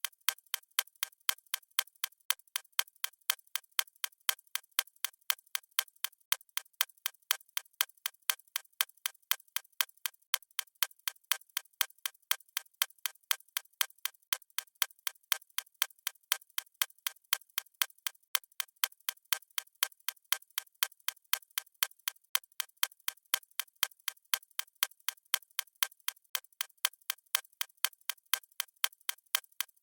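Clock-style ticking sound effect: crisp, evenly spaced ticks at a steady rhythm, marking the countdown.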